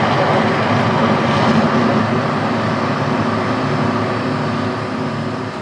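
The Mirage volcano show's loud, steady roar, easing off a little near the end.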